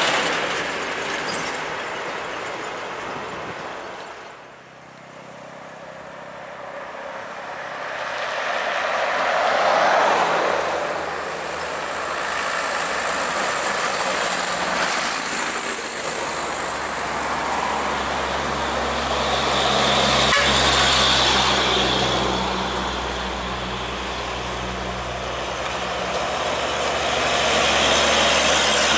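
Heavy diesel trucks passing on a hill road one after another, their engine and tyre noise swelling and fading, with a dip a few seconds in. In the second half, a loaded Hino 500 dump truck's diesel engine drones low and steady as it comes close.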